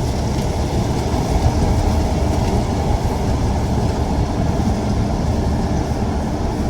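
GAM mini combine harvester running steadily, a dense, unbroken mechanical noise that is strongest in the low range.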